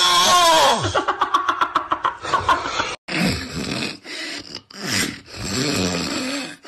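People snoring. A loud snore rises and falls in pitch and breaks into a fast rattle about a second in. After a sudden cut near the middle, about four more snores follow, each a noisy rush with a low tone under it.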